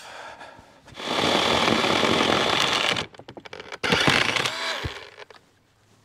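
A sawn maple slab dragged scraping along the log and mill bed, then handled onto a pile of slabs with wooden knocks and a thud: two long scraping rushes, the first about a second in and the second near four seconds, with a clatter between them.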